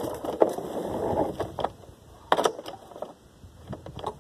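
A 2007 Snapper self-propelled mower's engine is pull-started and turns over with a rattle for about a second without catching, which the owner puts down to the carburettor running out of gas. Then come scattered sharp clicks and knocks, the loudest a little after two seconds in.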